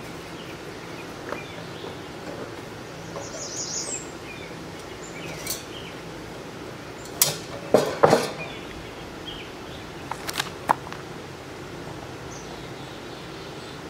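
Knocks and clanks of metal cooker parts being handled while an outdoor propane cooker stand is put together: a few sharp knocks about halfway through, then a quick run of lighter clicks. Steady outdoor background, with a bird chirping briefly before the knocks.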